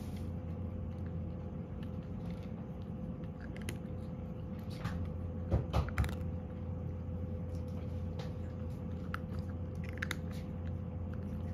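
Cat crunching dry kibble: scattered crisp bites and chews, with a few louder crunches about halfway through.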